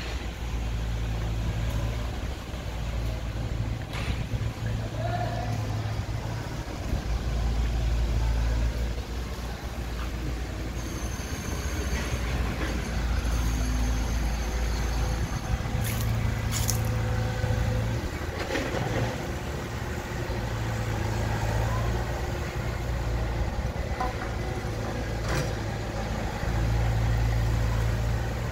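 Low, steady diesel engine rumble of heavy construction machinery, swelling and easing every few seconds, with a few sharp clanks about four seconds in and again around the middle.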